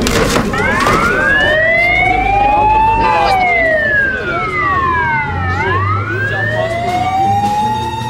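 Fire engine siren wailing, its pitch slowly rising for about two and a half seconds, falling for about as long, then rising again.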